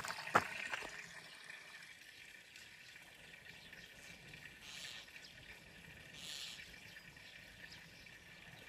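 Faint running or splashing water that fades away over the first two seconds, with one sharp click shortly after the start; after that only a faint hiss with a few soft swells.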